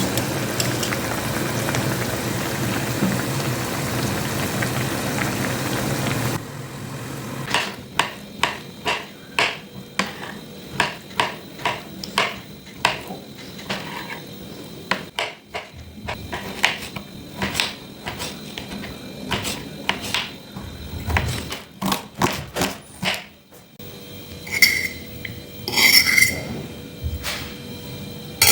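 Food frying in a pan with a steady sizzle that cuts off suddenly about six seconds in. It is followed by a run of kitchen-utensil knocks and clinks against pots and dishes, about one or two a second, with a couple of ringing clinks near the end.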